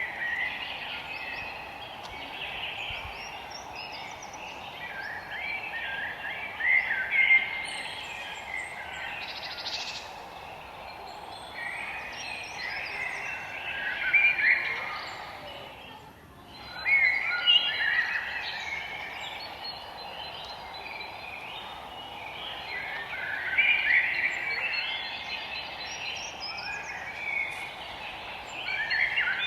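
Many forest birds chirping and calling together in overlapping waves, over a steady background hiss. The sound dips briefly a little past the middle.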